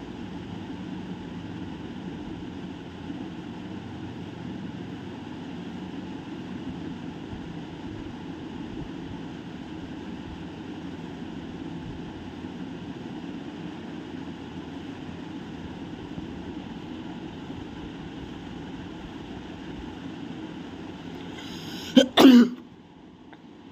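Steady wash of pool water being splashed about by people in a wave pool. Near the end a sudden loud short cry falls in pitch, followed by a brief second burst.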